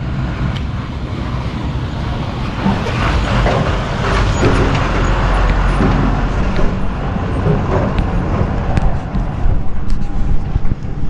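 A truck approaches on a rough dirt road and passes close by, its engine and tyres rumbling loudest about five seconds in and then fading. Underneath is a steady rumble of the bicycle rolling over gravel, with a few sharp knocks near the end.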